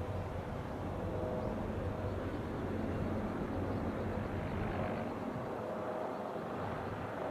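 Distant single-turbine light helicopter in flight: a steady drone of rotor and engine. The lowest rumble drops away about five seconds in.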